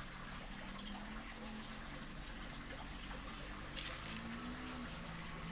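Quiet steady outdoor background noise, with a brief rustle of leaves brushing against the phone about four seconds in.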